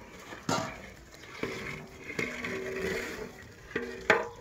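Long wooden paddle stirring a large metal cooking pot of hot liquid, knocking against the pot several times, with each knock followed by a brief ringing tone from the metal, over sloshing liquid.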